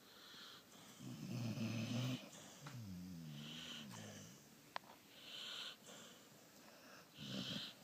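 Sleeper snoring: a loud, buzzing snore on a breath about a second in, then a drawn-out snore that wavers up and down in pitch, with hissing out-breaths in between. A brief click near the middle.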